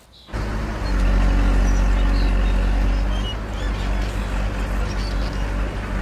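Excavator's heavy engine running with a steady low rumble, starting abruptly about a third of a second in and easing slightly about halfway through.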